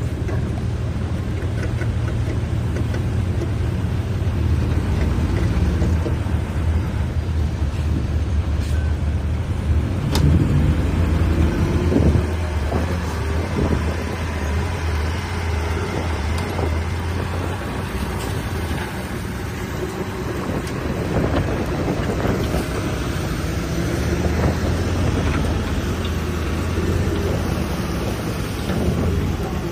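Heavy diesel engine of earthmoving machinery running steadily, with a few short metallic knocks about a third of the way in.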